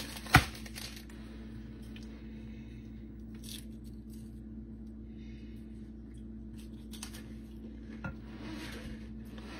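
A sharp click about half a second in, then faint scraping and squishing as a cracker is loaded with thick pimento cheese dip and a spoon works through it in a glass bowl, over a steady low hum.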